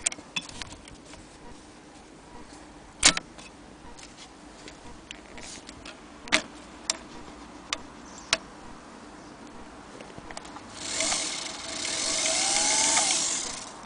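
Singer 222K Featherweight sewing machine: a few sharp clicks and knocks of its metal parts being handled, then for about three seconds near the end its electric motor runs the machine with a steady whir that swells and then stops.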